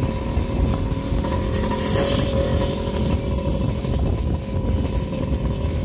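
Motorcycle engine running steadily at low speed, with wind buffeting the microphone.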